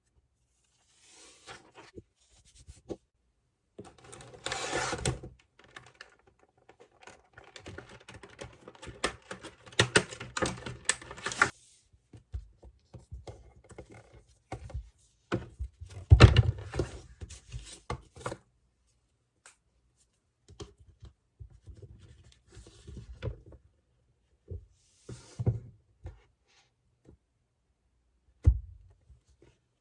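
Handling noises of a tablet and its accessories on a desk: irregular taps, clicks and scraping, with a few sharp thunks, the sharpest about halfway through and another near the end.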